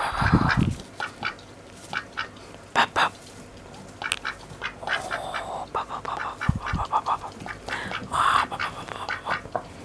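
Domestic ducks, Pekins among them, quacking in short rough calls, with scattered clicks and two low thumps, about half a second in and again near six and a half seconds in.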